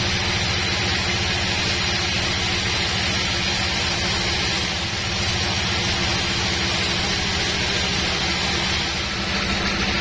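Large sawmill band saw slicing through an old teak log on its carriage: a steady hiss of the blade in the wood over the low, fast-pulsing drone of the diesel engine driving the mill.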